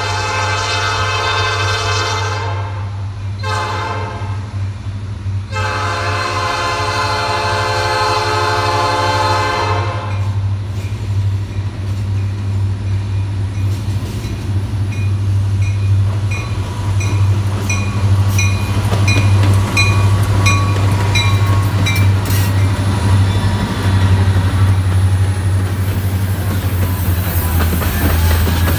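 Norfolk Southern diesel locomotive sounding its horn in three blasts, long, short and long, the last about four seconds. A bell then rings steadily as the locomotive draws near, and the train's rumble and rail noise build as covered hopper cars roll past.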